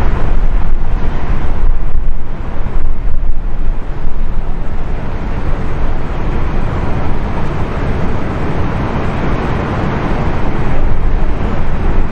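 Twin-engine jet airliner on final approach to landing, its engines a steady rushing noise. Heavy wind buffets the microphone throughout, gustier in the first few seconds.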